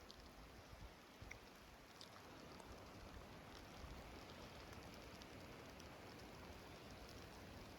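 Near silence: a faint, even hiss of outdoor ambience with a few small, scattered ticks.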